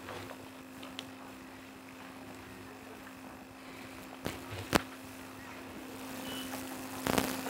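Quiet room with a steady low hum, broken by two sharp clicks about four and a half seconds in and a short rustling burst near the end, as documents are handed across the signing table.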